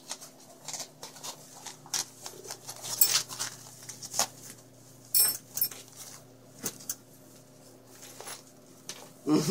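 Prairie dog dragging a fleece and fabric hammock across the floor: irregular rustling and scrabbling of cloth and claws, with scattered sharper clicks.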